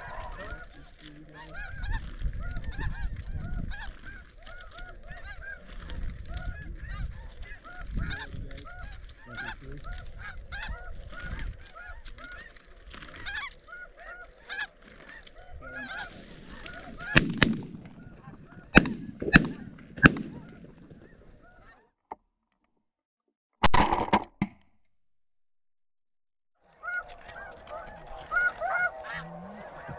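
Snow geese calling in a dense, continuous chorus of short high honks, then a volley of about four shotgun shots in quick succession a little past halfway. The sound then cuts out for a few seconds, apart from one brief burst, before the honking resumes near the end.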